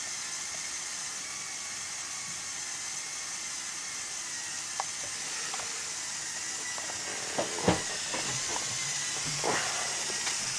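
LEGO Power Functions motor running steadily through the Technic Mobile Crane MK II's gearing to extend the telescopic boom: a steady whirr with a faint thin whine. A few light clicks and knocks come in the second half, the loudest about seven and a half seconds in.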